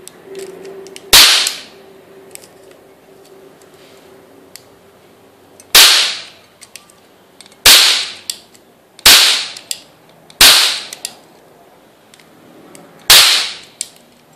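An all-metal, Italian-made toy cap-gun revolver firing caps: six sharp bangs at uneven gaps, the first about a second in. Faint clicks of the hammer being worked come between the shots.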